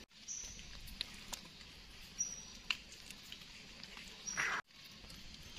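Hands rustling through dry leaf litter on the forest floor, with scattered small clicks and a short, louder rustle near the end. A few brief, faint high chirps sound in the background.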